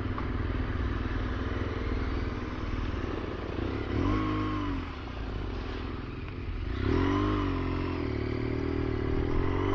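Motorcycle engine running under way over a steady rush of wind and road noise. The revs rise and fall about four seconds in, then pick up again about seven seconds in as the bike accelerates.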